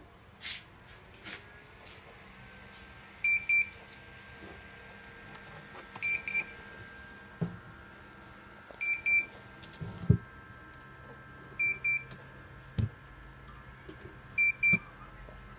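Piezo buzzer on an Arduino Nano egg-incubator controller giving a high double beep about every three seconds, five times over, with a few soft thumps in between.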